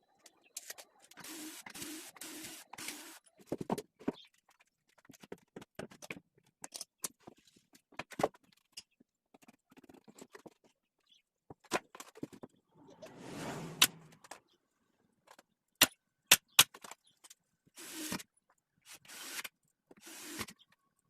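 Workshop handling sounds from work on wooden cabinet panels: scattered sharp clicks and knocks, with a few short scraping strokes, one run of several strokes a few seconds in and another near the end.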